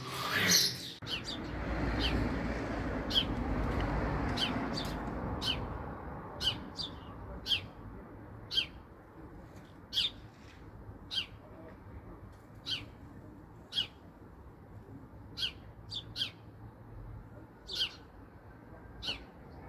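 House sparrow chirping: short, sharp single chirps repeated about once a second. A low background rumble is loudest over the first few seconds and then fades.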